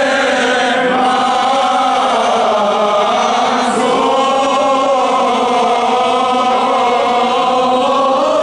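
Armenian church hymn chanted by a group of men's and women's voices, slow held notes that shift in pitch every few seconds without a break.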